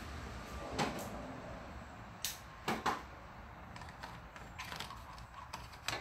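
Sharp plastic clicks and knocks as a Ford positive battery terminal assembly and its red plastic cover are handled and fitted at the battery. The clicks come one under a second in, two or three close together around two to three seconds in, and one more near the end.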